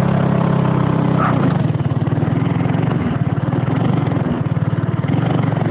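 Small go-kart engine running steadily at a low, even speed.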